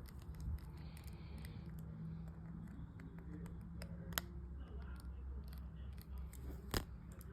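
Faint clicks and scrapes of a small precision screwdriver working at an iPhone's tiny screws, with two sharper clicks about four and seven seconds in.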